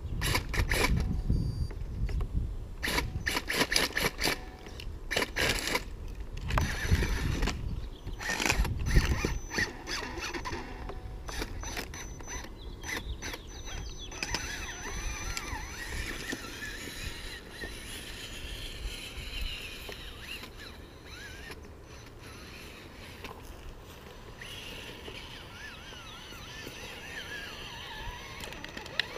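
Axial RR10 Bomber RC rock crawler with a Tekin brushless motor crawling over a pile of logs: a mechanical whir of motor and gears, with clicks and knocks as the tyres and chassis bump the wood. The knocking is busiest in the first half and settles into a steadier whir later.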